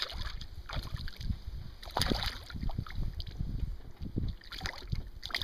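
Water lapping and splashing around a small boat, with irregular gusts of wind buffeting the microphone.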